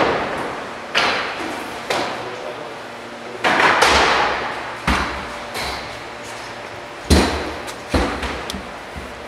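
An aluminium hook ladder banging and clanking against the window sills of a climbing tower as it is hooked on and climbed. There are about eight irregular knocks that ring on in the hall's echo, the loudest about seven seconds in.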